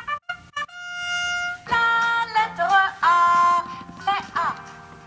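Short musical intro: a few quick plucked-sounding notes, a held steady note about a second in, then a bright melody with some sliding notes.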